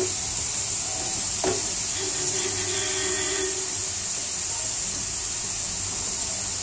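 Cubed potatoes deep-frying in a pan of hot oil: a steady, even sizzle, with one light tap about a second and a half in.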